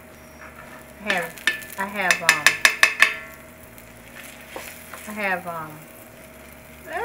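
Slotted metal spatula scraping and clacking against a cast-iron skillet as it is worked under frying pancakes, over a faint sizzle. There are squeaky scraping strokes, and a quick run of sharp metallic clicks about two to three seconds in that is the loudest part.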